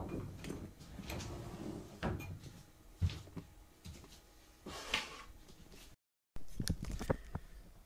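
Kittens scrambling and playing on a fabric blanket: scattered rustles and soft knocks, with a few sharper thumps spread through, and the sound cutting out briefly about six seconds in.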